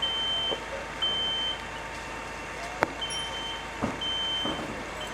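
An electronic alarm beeping one steady high tone, half-second beeps about once a second, with a break of about a second in the middle. A sharp click near the middle and a dull knock a second later.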